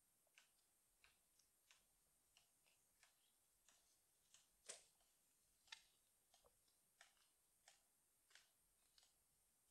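Near silence broken by faint footsteps on a gritty concrete floor: soft, short ticks at an even walking pace of about three every two seconds, one a little louder just before the middle.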